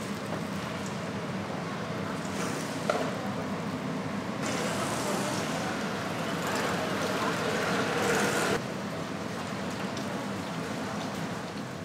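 Busy street-market ambience: indistinct background voices over a steady din, with a sharp click about three seconds in and a louder hissing stretch in the middle that cuts off suddenly.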